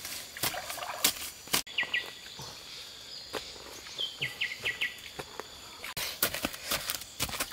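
A wooden stick jabbed repeatedly into wet mud, digging out a hole: a run of dull strikes, stopping abruptly about a second and a half in. Then a few seconds of riverside ambience with short falling chirps. The strikes pick up again near the end.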